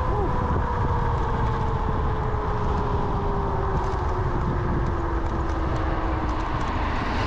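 Kaabo Wolf Warrior electric scooter at riding speed: a thin motor whine falling slowly in pitch over a steady rush of wind and road noise.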